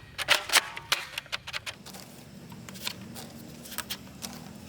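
Toy gun clicking: a quick run of sharp plastic clicks in the first second and a half, then a few scattered clicks.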